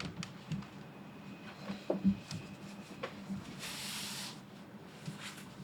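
Typing on an EM60% electrostatic capacitive (EC) keyboard with a PEI top frame: irregular keystrokes. A brief soft hiss comes a little past halfway.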